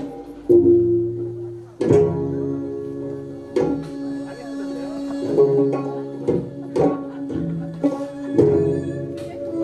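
Korean traditional music for a hallyangmu dance: long held string notes with sharp struck accents at irregular intervals.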